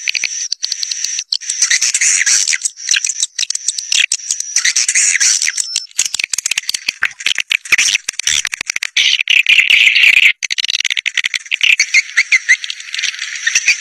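A recorded swiftlet caller: a dense, unbroken chorus of rapid high chirps, twitters and clicks from many swiftlets, the kind of call played to lure a flock of swiftlets to a nesting house.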